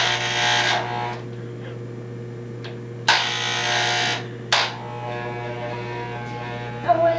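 Electric hair clippers running with a steady buzz. Two louder hissing bursts of about a second each come near the start and about three seconds in, followed by a short click.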